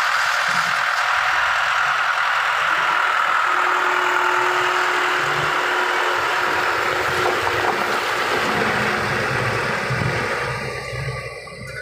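Heavy diesel machinery running steadily: a wheel loader, a tractor and a concrete mixer truck close by. A steady hum joins about three seconds in, and the sound fades near the end.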